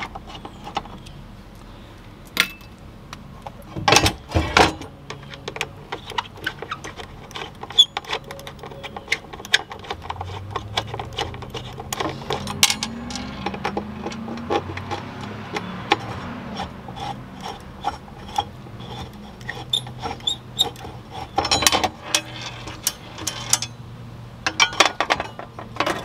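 Bolts being undone and metal mounting hardware handled on a water tank's mount: irregular clicks, clinks and knocks of tools, bolts and brackets, with a few louder knocks.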